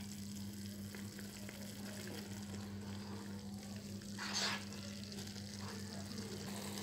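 Minced beef simmering in water in a kadhai, a quiet steady bubbling sizzle over a steady low hum. About four seconds in, a spatula stirs through the chopped onions with a short scraping rustle.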